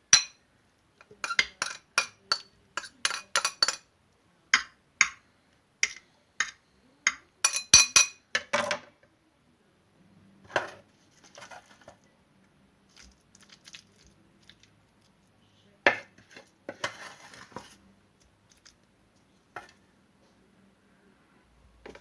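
Metal cutlery clinking against dishes in a quick, irregular run of sharp clinks for the first nine seconds or so, then scattered clinks and brief scraping.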